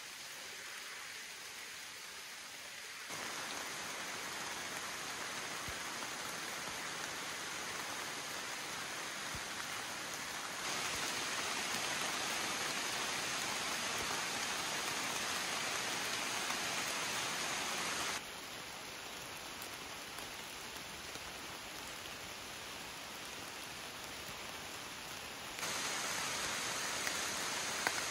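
Steady summer rain falling on forest leaves: an even hiss with no other sound standing out. Its loudness steps up or down abruptly several times.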